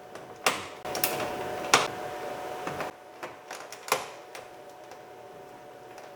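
Flat-blade screwdriver prying a power window switch out of a plastic door trim panel: several sharp plastic clicks and snaps with scraping between them, the loudest about a second and three quarters in, then quieter handling.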